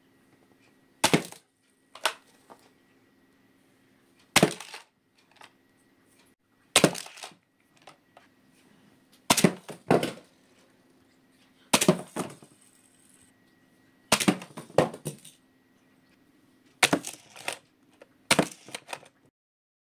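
Die-cast toy cars shot along plastic toy track: about nine sharp plastic clacks and short rattles, a second or two apart, as cars are launched, run along the track and crash into a cardboard box.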